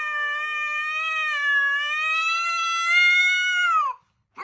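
A cat's long, drawn-out yowl at a nearly even pitch for about four seconds, dropping in pitch as it ends. A second, rising call begins right at the end.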